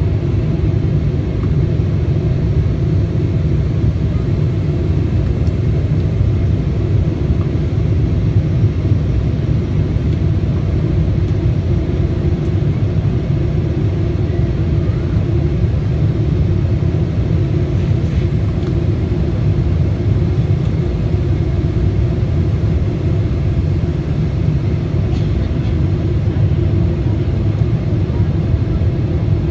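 Cabin noise aboard a Boeing 777-200 airliner: a steady, even low rumble of the engines and airflow, with no change in level.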